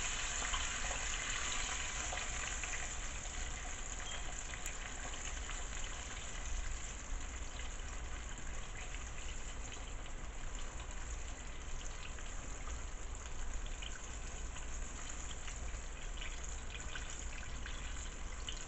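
Chicken wings deep-frying in hot oil: a steady sizzle with scattered small crackles, brightest in the first few seconds and then settling.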